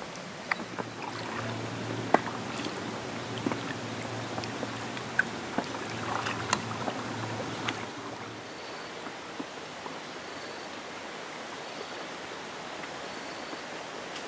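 Moving water and paddling around an inflatable canoe on a river, with scattered light knocks and splashes. In the second half a faint, short, high chirp repeats about four times.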